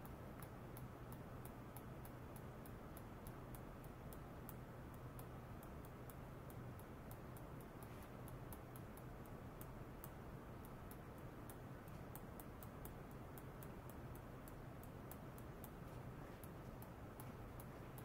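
Faint, sharp high-pitched ticks, about three a second at irregular spacing, over a low steady electrical hum.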